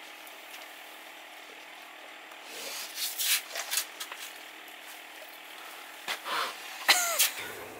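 A Rottweiler sniffing and snapping at a small fish dangled in front of its nose, in clusters of quick, sharp sniffs. A short sound falling in pitch comes near the end.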